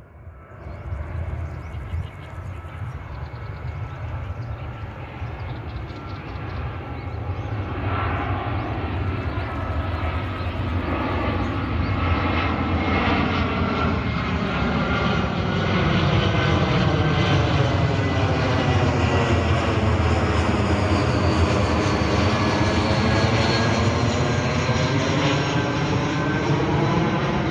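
An Asiana airliner's jet engines rumbling as it flies over on approach to land, growing louder over roughly the first fifteen seconds and then holding loud. Its hiss has a tone that sweeps slowly down and back up as it passes.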